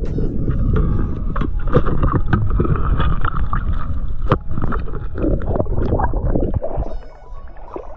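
Underwater camera sound of a freediver moving along the seabed: a steady low rumble of water movement against the camera, with many scattered clicks and knocks. It turns quieter for about the last second.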